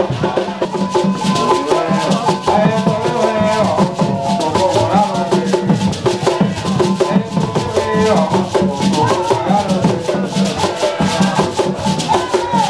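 Vodun ceremonial drumming with shaken rattles in a fast, dense rhythm, with voices singing over it.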